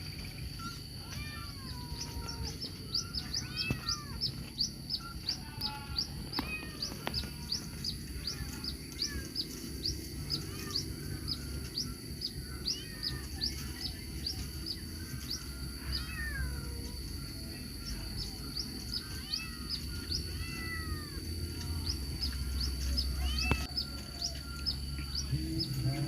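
Outdoor animal sounds: a bird giving a rapid series of short high chirps, about two or three a second, pausing briefly in the middle, over a steady high insect trill, with scattered lower curved calls.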